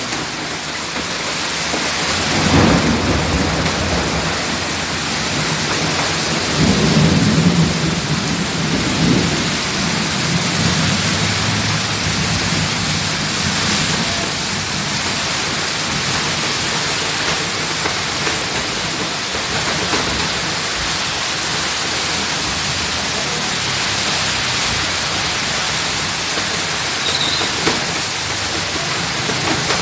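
Heavy rain pouring steadily, with thunder rumbling about two and a half seconds in and again longer from about six to ten seconds in.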